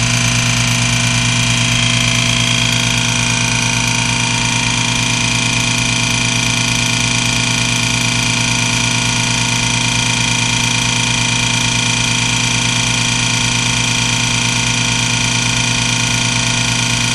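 Vacuum pump running steadily as it pumps the air out of a sealed chamber, a constant mechanical drone with a strong low hum.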